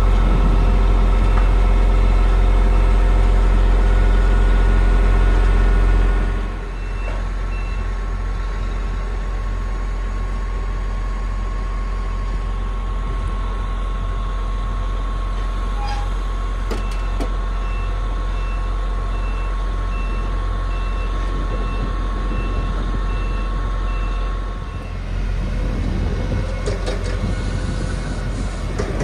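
Fassi F660 truck-mounted loader crane under power: the truck engine runs at raised revs driving the hydraulic pump, with a steady hydraulic whine. A repeating high beep sounds early on and again in the second half. The revs and whine drop about six seconds in and pick up again near the end as the crane's movements change.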